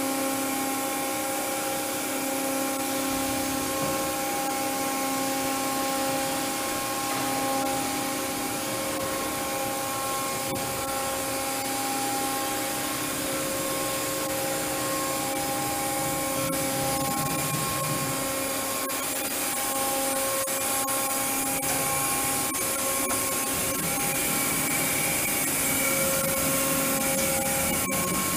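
Gantry-type 5-axis machining center running its automatic head change: a steady mechanical whir with a motor whine held on one pitch that cuts in and out, and a few faint clicks.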